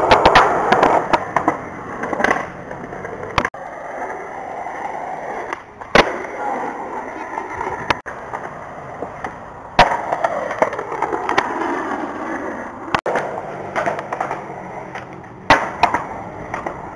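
Skateboard wheels rolling on concrete, broken by several sharp clacks of the board hitting the ground during tricks and landings.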